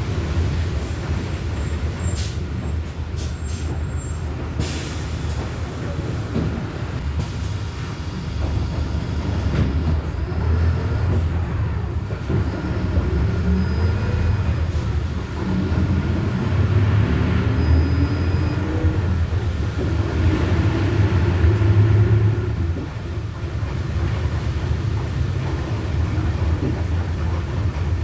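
Volkswagen Volksbus 17.230 OD bus under way: a steady low diesel rumble, with a whining gearbox whose pitch climbs as the bus gathers speed and drops back several times, typical of a growling ('roncando') transmission. A few short clicks or rattles early on.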